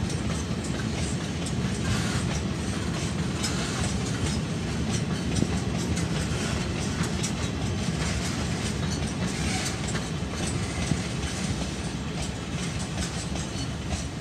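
Freight train of hopper wagons loaded with limestone rolling past in a steady rumble, the wheels clacking over the rail joints.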